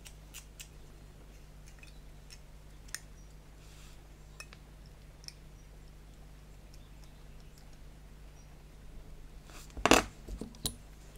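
Small plastic model parts and hobby tools being handled: a few faint light clicks over a steady low hum, then about ten seconds in a short cluster of louder clicks and taps as metal tweezers are put down on the cutting mat.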